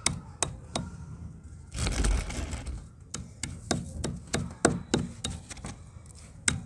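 A hand pounder repeatedly striking dry red clay and brick chunks on a hard floor, crushing them into crumbs: sharp knocks about three a second. About two seconds in there is a longer gritty crunching scrape.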